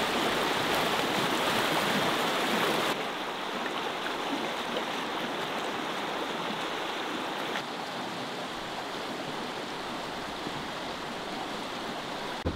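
Shallow rocky river rushing over a riffle of stones: a steady wash of water, louder for the first three seconds, then a softer, even flow.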